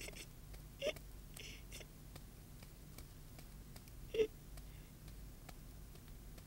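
Faint, brief bits of a person's voice, twice, about a second in and about four seconds in, over a steady low hum.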